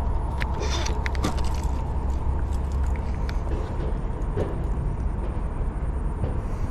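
Wind buffeting the microphone with a steady low rumble while a baitcasting rod is cast and the reel wound in: a short hiss of line running off the spool about a second in, then scattered faint clicks.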